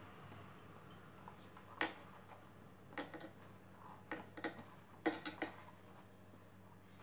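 Faint, scattered clicks and light taps of fingers pressing a paper quilling coil into a plastic dome-maker mould, several coming in quick clusters.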